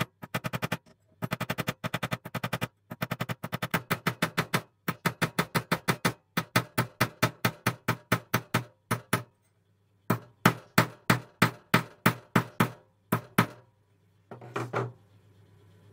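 Hammer peening rivet pins through copper handle scales and a steel knife blade held in a bench vise: runs of sharp metallic taps, about ten a second at first and slowing to about four a second, broken by short pauses. The tapping stops near the end, followed by a brief rustle.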